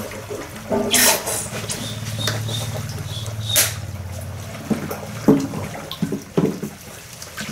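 Washing dishes by hand in plastic basins: water splashing and trickling, with several sharp clinks and knocks of dishes and the soap bottle, over a low steady hum.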